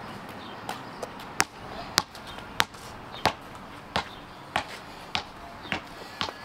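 Footsteps on a concrete sidewalk: sharp, even knocks at a walking pace of a little under two steps a second.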